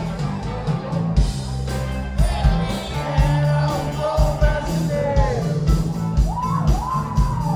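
Rock band playing live: electric guitars, bass and drums with a steady beat, and a lead vocal singing for much of the stretch.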